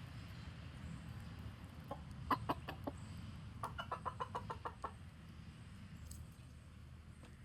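Chicken clucking: a few spaced clucks, then a quick run of about ten, the kind of clucking chickens use to warn the flock. A steady low rumble lies underneath.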